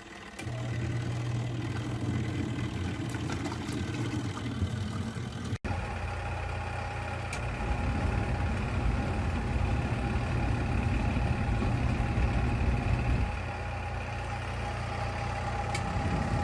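Garatic mini twin-tub washing machine's motor running with a steady hum, switching on abruptly about half a second in. About five and a half seconds in the sound changes abruptly to a steady whine over a noisier churn.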